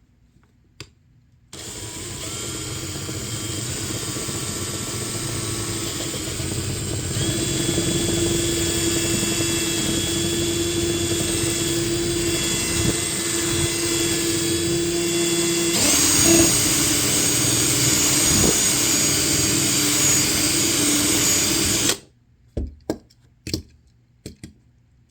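Electric drill with a 1/8-inch bit drilling out a rivet in a diecast toy car's base: a steady motor whine starting about a second and a half in, its pitch shifting a couple of times, stopping suddenly near the end and followed by a few faint clicks.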